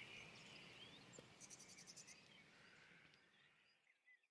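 Near silence: a faint background bed of nature ambience, insects chirring and a few bird chirps, fading out to silence about three seconds in.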